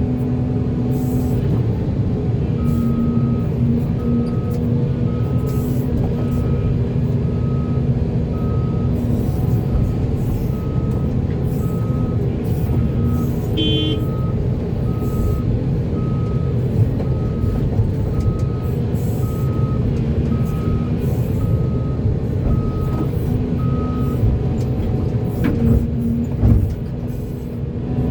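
Heavy diesel engines running steadily, with a backup alarm beeping just under once a second for most of the stretch before it stops near the end. A short high squeal comes about halfway through.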